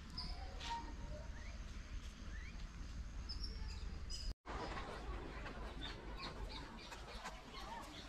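Outdoor ambience of birds chirping in short high notes over a low rumble. The sound drops out for an instant a little past halfway, then continues as scattered clicks and crackle.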